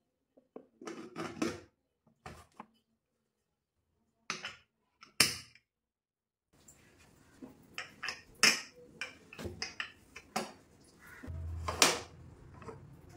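Prestige Deluxe Plus aluminium pressure cooker lid clinking and knocking against the pot as it is fitted and locked shut, then a run of sharp metal clicks and taps from handling the cooker and its whistle weight, the loudest near the end.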